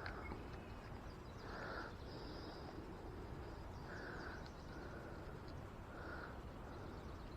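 Faint outdoor ambience: a steady low background hiss with a few short, soft bird calls scattered through it.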